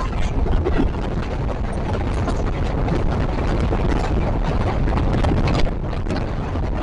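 Passenger train running along the track, wheels on the rails giving a dense clatter of quick clicks over a steady rumble, with wind noise on the microphone.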